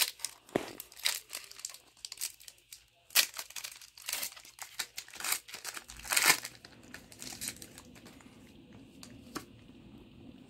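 Foil wrapper of a Pokémon trading card booster pack crinkling and tearing as it is ripped open by hand, in irregular crackles that are loudest about three and six seconds in, then fading to faint rustling after about seven seconds.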